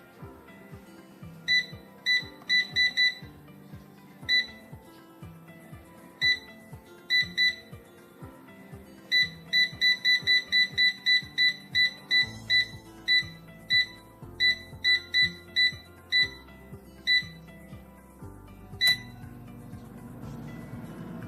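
Digital air fryer's control panel beeping as its temperature and time are set button by button. Scattered single beeps come first, then a quick run of beeps about four a second. A louder final beep comes near the end, after which the fryer's fan starts with a rising whir. Music plays underneath.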